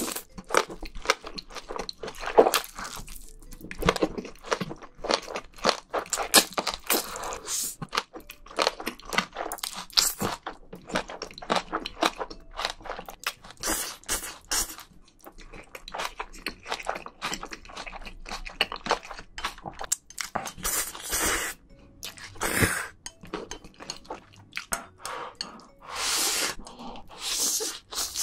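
Close-miked eating of black bean noodles: noodles slurped in, then wet chewing and lip smacks in quick, uneven clicks, with a few longer slurps.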